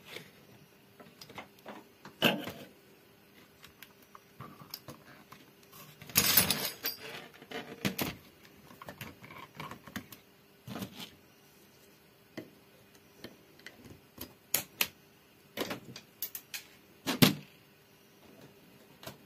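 Irregular clicks, taps and knocks from a circuit board and tools being handled on an amplifier's metal heatsink, with a denser clatter about six seconds in and a few sharp knocks near the end. A faint steady hum runs underneath.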